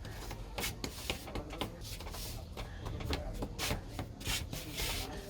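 Hands rubbing and tapping on a head's hair and scalp during a barber's head massage: irregular rasping strokes mixed with sharp taps.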